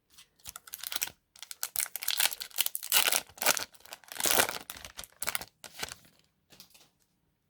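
Foil wrapper of a 2020 Bowman baseball card pack being torn open and crinkled: a dense run of crackles and rips starting about half a second in, loudest in the middle and dying away near the end.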